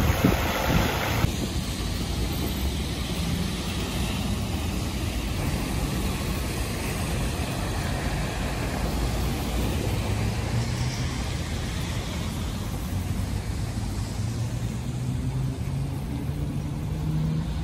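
Town traffic noise: vehicles passing over wet pavement, a steady low rumble with tyre hiss. A low engine hum rises in pitch near the end.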